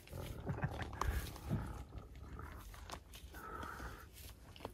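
Scattered short animal calls and noises from African wild dogs facing off with a spotted hyena at a kill, with one longer call near the end.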